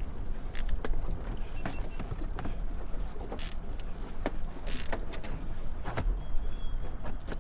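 Small outboard motor running at trolling speed under wind noise on the microphone, with scattered clicks and a couple of short hissing rushes.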